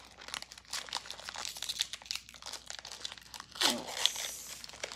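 Foil wrapper of a Pokémon Shining Fates booster pack crinkling and tearing as it is pulled open by hand, with a louder crackle about three and a half seconds in.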